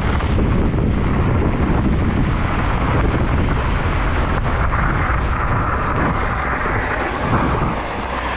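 Wind rushing over the microphone and the tyre rumble of a mountain bike descending a dirt trail at speed, with scattered knocks and rattles from the rough ground.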